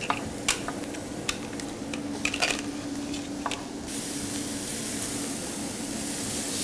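Chef's knife chopping onion on a wooden cutting board: a few sharp, irregular taps. About four seconds in, a steady frying sizzle from onions in the hot pan starts suddenly and carries on.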